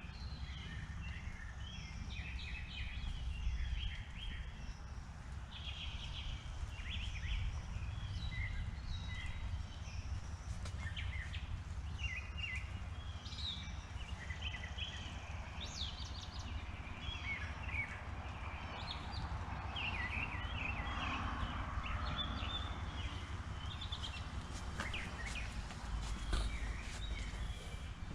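Songbirds chirping and twittering in many short calls throughout, over a steady low rumble of outdoor background noise.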